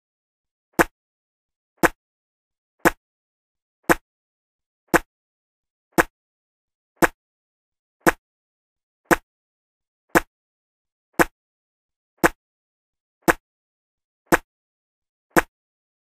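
A short spitting sound from a person's mouth, the same spit repeated about once a second, fifteen times, with silence between.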